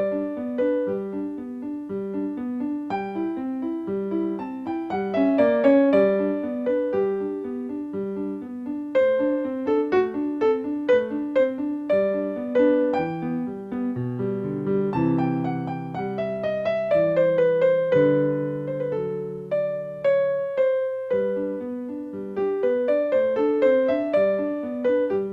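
Solo piano music, a flowing pattern of repeated notes, with a slower passage of held lower chords about halfway through.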